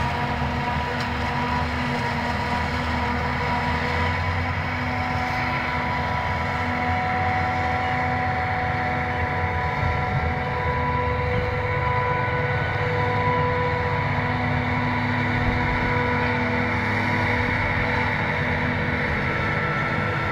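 Claas Jaguar 850 self-propelled forage harvester with an Orbis 600 maize header, chopping maize: a steady machine drone with several steady whining tones, and tractors running alongside.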